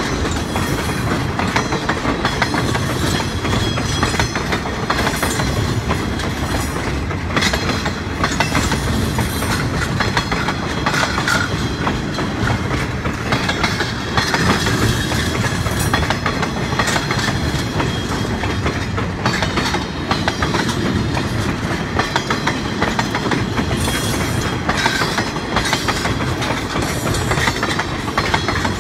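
A train of empty logging railway cars rolling steadily past, steel wheels clicking over the rail joints with a continuous rumble and irregular clanks.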